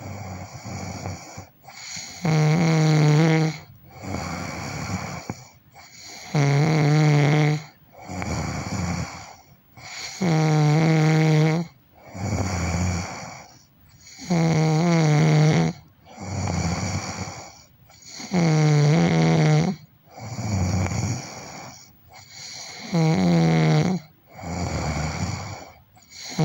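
A person snoring loudly and rhythmically: a drawn-out, low, rattling snore on each breath in, about one every four seconds, each followed by a quieter, breathy exhale.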